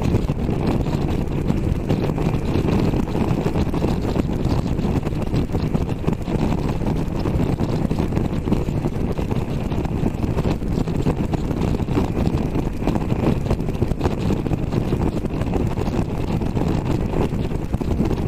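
Triumph Tiger Sport 660 motorcycle cruising at steady highway speed: a steady rush of wind on the microphone with the three-cylinder engine running underneath, holding an even level throughout.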